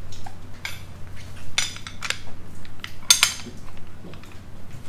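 Metal rigging gear being handled, chain and hardware clinking and clanking: a handful of sharp metallic knocks with a ringing tail, the loudest about three seconds in, over a steady low hum.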